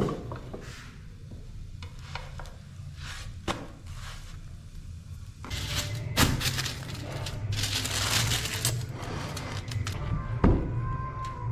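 A sharp clunk from a double-sided aluminium grill pan as its handles are worked. Later, aluminium foil crinkles for about three seconds as it is spread over a plate, with two knocks on the table, one in the middle and one near the end.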